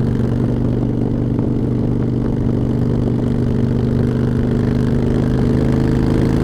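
Motorcycle engine running steadily at riding speed, heard from the rider's own bike, with its pitch rising a little near the end; low wind rumble underneath.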